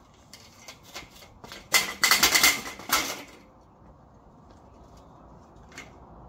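Scrap metal clattering as it is handled: a few light knocks, then about a second and a half of rapid rattling clatter, the loudest part, which dies away.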